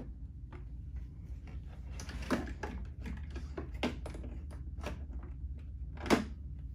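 Hard plastic clicks and knocks from handling the Trojan VisionHD inspection camera's case as its keyboard tray is pushed back into place: about five separate knocks, the loudest near the end, over a low steady hum.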